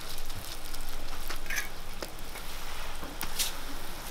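Sweet-pumpkin hotteok sizzling steadily in oil on a flat griddle, the dough flattened under stainless-steel hotteok presses, with a few short clicks through the hiss.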